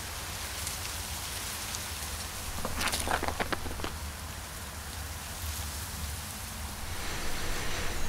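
Steady outdoor hiss of wind through dry leaves and grass. About three seconds in comes a brief run of sharp clicks and rustles.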